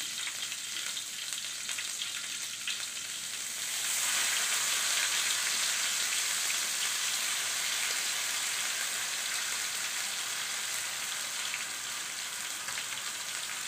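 Ground rendang spice paste frying in hot oil in a wok, a steady sizzle with faint small ticks. The sizzle grows louder about four seconds in.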